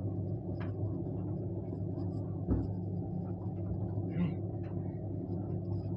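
Washing machine running with stuffed toys tumbling in its drum: a steady low hum with a few faint knocks.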